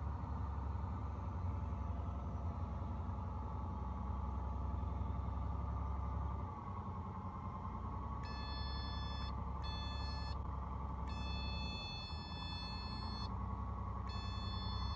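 Piper Dakota's six-cylinder Lycoming O-540 engine running at low power during the landing rollout, a steady low drone heard inside the cabin. From about eight seconds in, a high electronic tone sounds over it in four on-and-off stretches.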